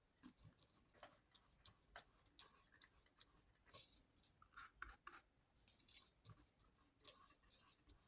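Faint, irregular scratchy strokes of a paintbrush working acrylic paint, in short dabs and swipes.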